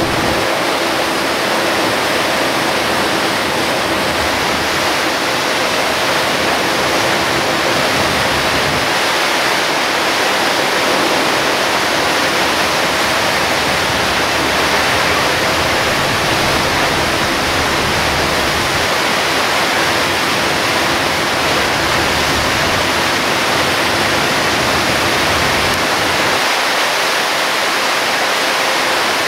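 Loud, steady rushing hiss of heavy rain and wet-road spray around a moving Hino Selega HD coach, with a low rumble that comes and goes underneath.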